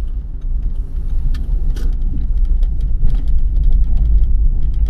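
Vehicle driving along a narrow lane, recorded on board: a steady low rumble of engine and road noise with scattered light clicks.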